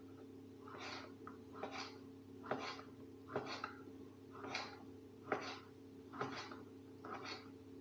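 Knife cutting a small sausage into small pieces on a round cutting board: short knocks of the blade against the board, about one a second, over a steady low hum.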